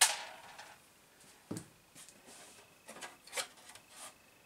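Clear polycarbonate RC car body shell being handled: a sharp plastic clack right at the start, a dull knock about a second and a half in, then a few short scratchy rubs of the plastic a little after three seconds.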